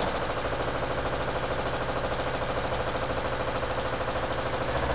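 Electric sewing machine running steadily, stitching a seam through two fabric patches with a fast, even stitching rhythm.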